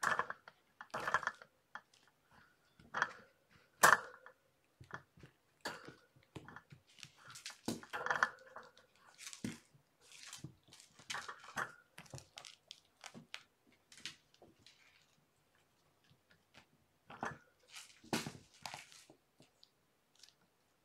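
Cats at play on a carpeted floor: scattered short scuffles, knocks and rustles of paws and toys, the loudest a sharp knock about four seconds in, with a quieter stretch near the end.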